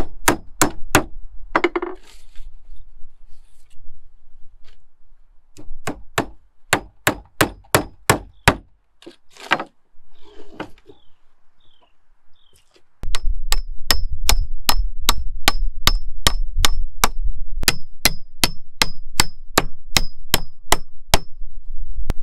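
Hammer driving nails into pallet-wood stringers, spliced together for roof rafters: quick, even strikes about three or four a second, in short runs, then a long run of about eight seconds near the end in which each blow rings metallically.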